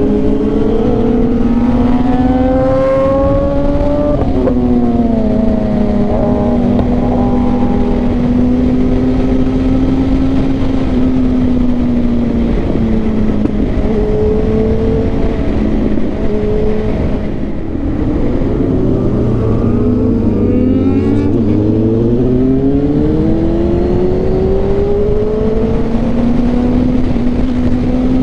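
Motorcycle engine running at road speed under heavy wind rush, its pitch climbing as it accelerates over the first few seconds and dropping back about four seconds in, then wandering gently. Around two-thirds of the way through, a second, deeper engine note swells and fades.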